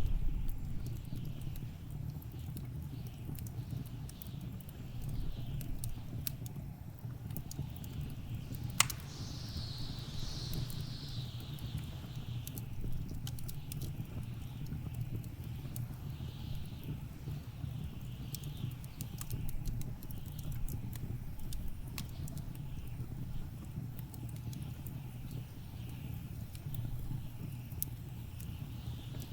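Blizzard wind with a steady low rumble, over a crackling wood fire giving scattered sharp pops. One louder snap comes about nine seconds in.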